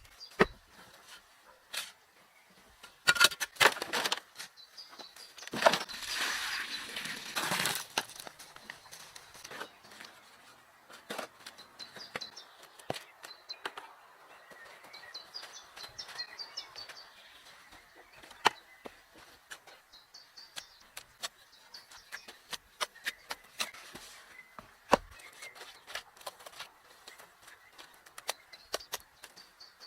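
Scattered sharp clicks and knocks, with a few seconds of scraping or rustling about three to eight seconds in, over faint bird chirps.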